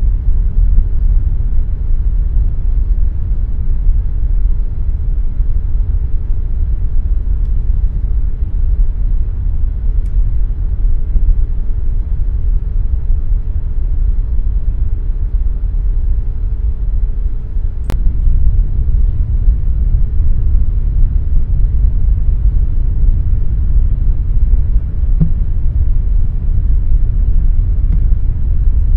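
Air conditioner running: a steady, loud low rumble of rushing air with a faint hum, and a single sharp click about two-thirds of the way through.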